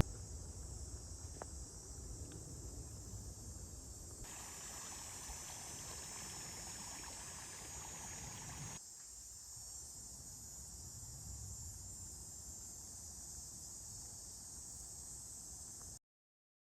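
Outdoor ambience of insects chirring in a steady high band, with a faint low rumble beneath. The ambience shifts abruptly twice, about four and nine seconds in, and cuts off to silence just before the end.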